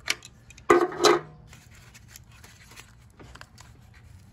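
Hands pulling and twisting a stuck old rubber PCV hose off its valve: a few small clicks, then two loud rubbing scrapes about a second in, then faint handling clicks. The hose is tight on the fitting.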